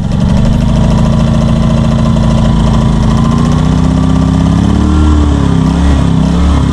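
Westinghouse portable generator's small gasoline engine running just after a pull start and warming up from cold. It runs at a steady speed, then wavers up and down for a moment about five seconds in before settling again.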